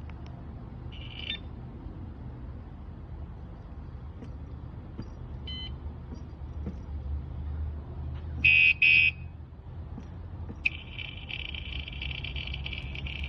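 Electronic motorcycle alarm: a short high beep about a second in, two loud high beeps about eight and a half seconds in, then a continuous high alarm tone starting a second and a half later. A steady low hum runs underneath.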